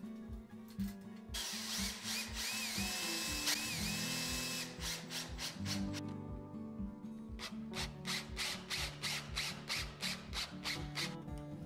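A power drill runs for about three seconds, starting about a second in, its whine wavering up and down in speed. A quick run of clicks or taps follows, all over guitar background music.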